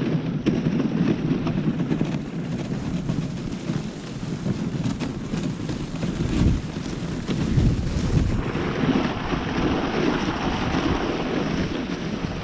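A dog sled moving along a snow trail: wind rumbles on the microphone while the sled's runners hiss over thin snow and gravel. About two thirds of the way through the hiss grows brighter and stronger.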